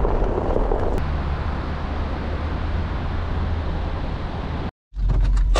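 Steady road and tyre noise of a 2008 Volvo XC90 being driven, heard from inside the car as an even hiss over a low hum. It breaks off for a moment near the end.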